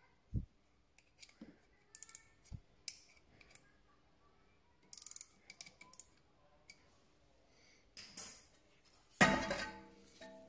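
Hand tools and metal parts of a rear brake caliper being worked by hand: scattered small clicks and knocks, a quick run of ticks about halfway through as the piston spindle is turned, and a louder metallic clatter with some ringing near the end as the caliper is handled.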